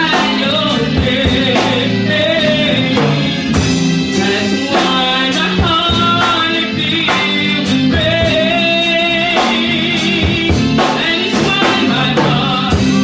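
A woman singing into a microphone over instrumental backing music with a regular beat.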